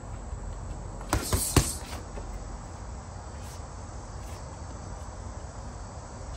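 Three quick punches, a jab-cross-hook combination, landing on a heavy bag about a second in, the last hit the loudest, over a steady background hiss.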